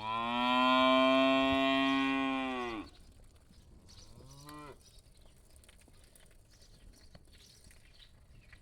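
A cow mooing: one long, loud moo lasting about three seconds, then a shorter, fainter moo about four seconds in.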